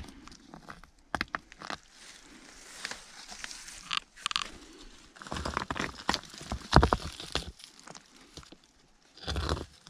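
Footsteps crunching and scraping on loose rock, with sharp clicks of stones knocking together. The louder crunching comes in irregular bursts in the second half.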